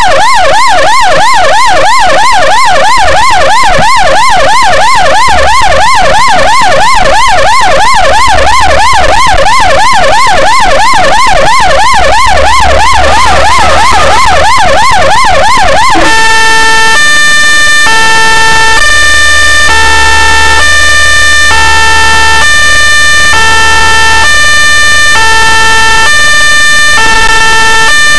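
Ambulance siren sounding very loud: a fast rising-and-falling yelp that switches, about two-thirds of the way in, to a slower two-tone call alternating between a high and a low pitch. A low engine and road rumble runs beneath it.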